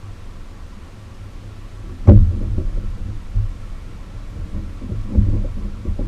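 Dull thumps and knocks of gear being handled aboard a kayak, the loudest about two seconds in and another cluster about five seconds in, over a steady low rumble.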